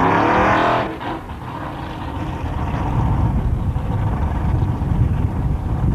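Pro Gas drag car's engine at the starting line, revving briefly, then running at a low idle that grows louder from about three seconds in.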